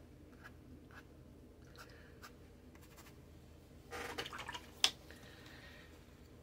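Faint scratching ticks of a watercolour brush on paper, then about four seconds in a short rustling burst followed by a single sharp click as she reaches over the paint palette.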